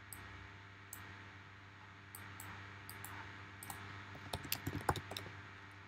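Faint computer keyboard typing and mouse clicks: a few scattered clicks, then a quick run of keystrokes about four seconds in, over a low steady hum.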